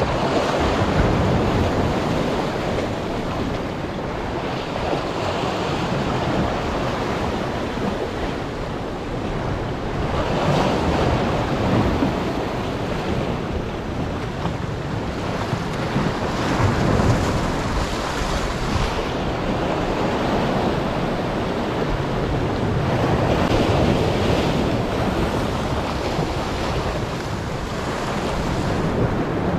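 Small waves surging and washing over the boulders of a rock breakwall, the wash swelling every five or six seconds, with wind buffeting the microphone.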